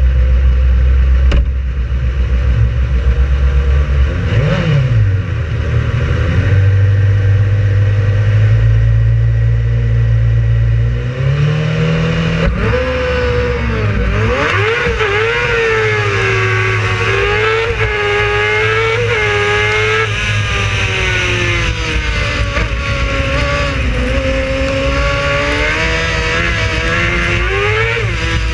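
Race car engine running with a steady low drone. About twelve seconds in it starts revving under way, the engine note rising and falling over and over.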